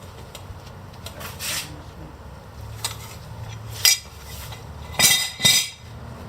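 Metal clinks and scrapes of a socket wrench and wheel-lock key on a car's locking lug nut as it is worked loose. A few sharp clinks, the loudest about five seconds in, over a steady low hum.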